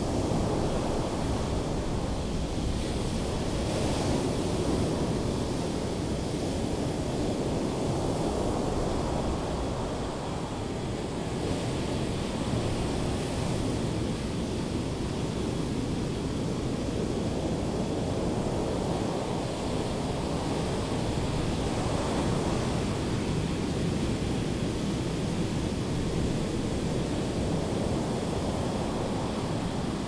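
Ocean surf on a sandy beach: waves breaking and washing up the shore in a steady rush that swells and eases every several seconds, with some wind buffeting the microphone.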